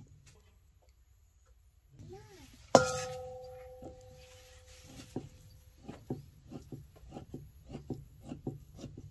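A knife chopping raw pork on a wooden chopping board: short sharp strokes, about three a second, from about five seconds in. Near three seconds in, a single loud metallic clang rings on for about two seconds.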